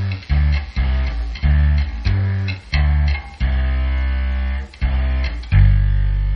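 Low notes played softly on an active electric bass through an Eden WT800 bass amp: a run of short plucked notes, then a longer one held near the end. The tone carries the distorted, buzzing low sound the owner is chasing on low notes, which he likens to a dying battery, a worn-out tube or a speaker starting to blow.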